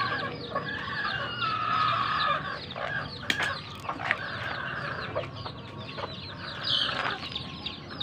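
A flock of young gamefowl chicks peeping constantly in quick, short falling chirps, mixed with lower clucking calls from the older birds. A couple of sharp clicks come about three and four seconds in.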